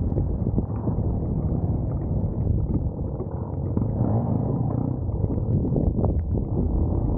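Off-road motorcycle engine running over rough ground, heard muffled, with frequent knocks and rattles.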